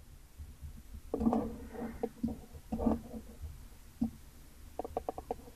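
Faint desk noises from working a computer mouse: a couple of soft knocks, then a quick run of short clicks near the end.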